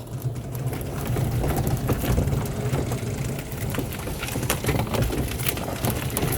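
Solar-electric trike setting off. Its drivetrain, with a newly installed chain differential, runs with a steady low hum and irregular rattling clicks from about the first moment.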